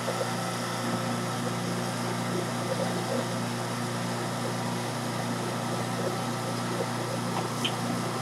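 Electric juicer's motor running with a steady hum as pieces of produce are fed through it, with a few faint ticks.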